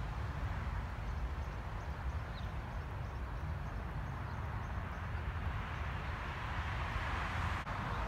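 Outdoor ambience: wind rumbling on the microphone over a steady hiss of distant traffic, the hiss growing a little louder near the end.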